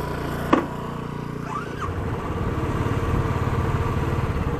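Royal Enfield Classic 350's single-cylinder engine running as the motorcycle pulls away, getting louder as it picks up speed. A sharp click about half a second in.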